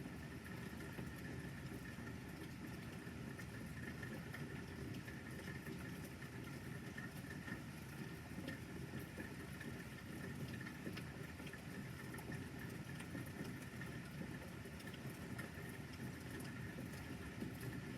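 Steady outdoor night ambience: an even low rumble with a faint steady high tone and scattered light ticks, with no thunder or swelling sound.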